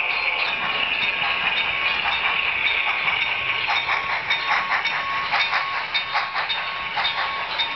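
HO-scale model steam locomotive and freight cars running past close by on the track: a steady high whir, joined by rapid clicking from about three and a half seconds in.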